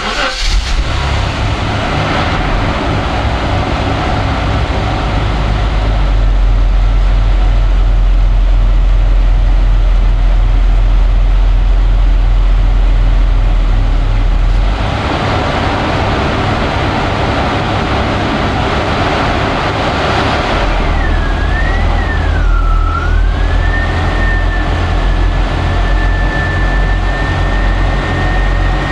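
A car engine running steadily close by, with a thin whining tone that wavers about two-thirds of the way through and then holds steady.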